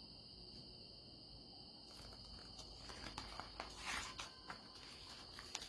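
Faint paper rustling and a few light taps from about two seconds in, as of a picture-book page being turned, over a steady faint high-pitched tone.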